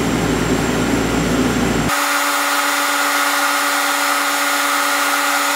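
Steady hum of running machinery. About two seconds in, the sound changes abruptly to a steady whine of a few held tones with no low rumble, which lasts to the end.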